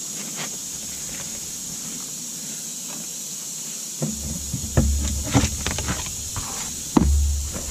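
Steady hiss, then from about four seconds in, short scrapes, rustles and knocks of tar paper (roofing felt) being cut and worked by hand, with low rumbles in between.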